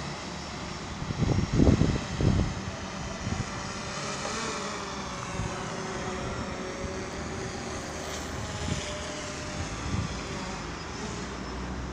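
DJI Phantom 4 quadcopter's propellers humming as it descends and closes in, with the pitch bending as it manoeuvres. A few loud low thumps come about a second or two in.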